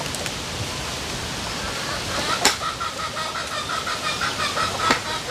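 Two sharp chops of a big knife cutting meat on a wooden stump, about two and a half seconds apart, over a steady hiss. Between and around them a bird calls in a quick repeated run.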